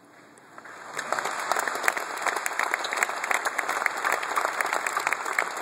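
Audience applause: a few scattered claps at first, swelling about a second in into dense, steady clapping from a large crowd.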